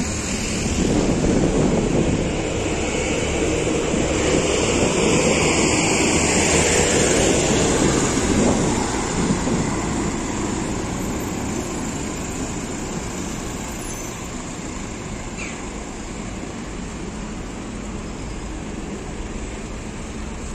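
Steady traffic noise from a passing motor vehicle, swelling over the first few seconds and then slowly fading.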